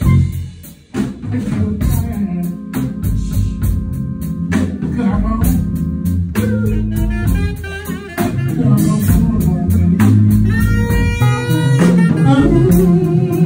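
Live blues band playing, with electric guitar, drum kit and saxophone.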